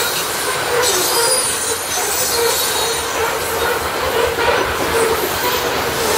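Coal hopper cars of a long freight train rolling steadily past: a continuous rumble of steel wheels on rail, with a wheel squeal that comes and goes.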